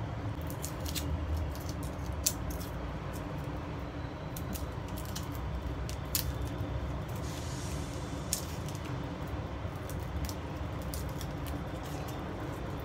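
Light, scattered clicks and taps of garlic cloves being peeled and handled on a cutting board, with a brief papery rustle about halfway through. A steady low background rumble runs under it.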